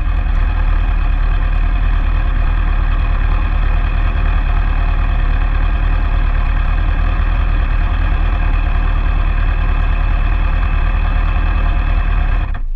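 Motorcycle engine idling steadily close by, cutting off shortly before the end.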